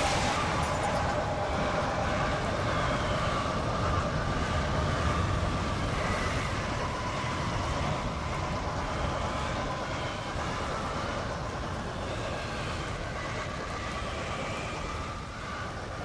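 Simulated tornado: a steady rush of wind and low rumble like a passing freight train, with faint wavering howls, slowly fading.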